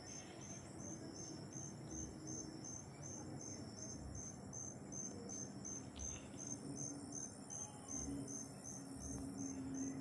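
Evening insects chirring, most likely crickets: a high trill pulsing about three times a second over a steady high drone.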